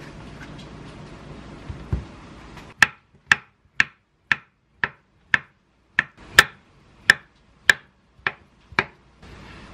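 Chef's knife cutting avocado on a wooden cutting board: a thump about two seconds in, then twelve sharp knocks of the blade against the board, about two a second.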